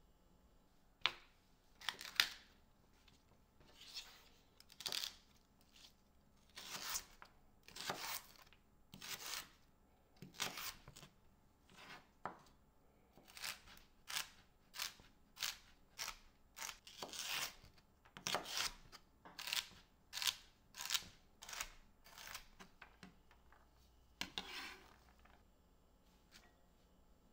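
Knife cutting food on a cutting board: a run of short slicing strokes, irregular at about one a second, with two sharp knocks near the start.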